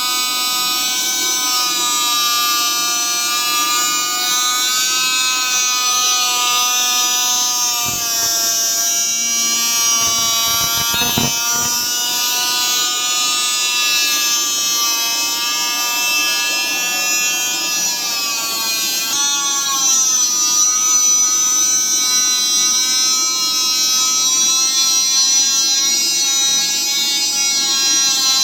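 Electric grinder running on a slewing bearing's steel race during grinding and polishing repair. It gives a steady whine whose pitch sags and rises as the load changes, with a few short knocks about eight to eleven seconds in.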